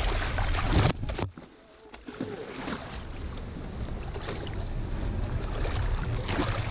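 Wind rushing over the microphone and water splashing as a hooked tarpon thrashes at the surface beside the boat. About a second in, the noise drops away sharply and goes quiet and muffled for a moment, then builds back up.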